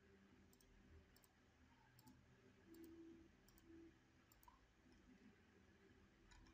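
Faint computer mouse clicks, several of them spaced irregularly, over quiet room tone.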